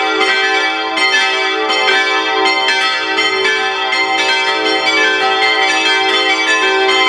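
Full peal of five Rincker-cast church bells, tuned e'' g'' a'' c''' d''', swinging in a small campanile. Their strikes overlap in a dense, continuous ringing.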